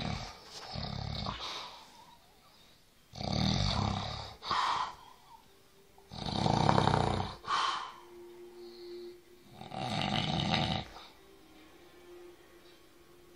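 Snoring in a steady rhythm: four rough snores about three seconds apart, each ending in a shorter, higher-pitched snort.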